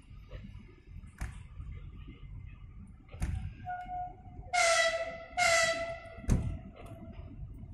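Train horn sounding two short blasts a little past the middle, after a softer held tone. A dull thump comes just before the blasts and another just after.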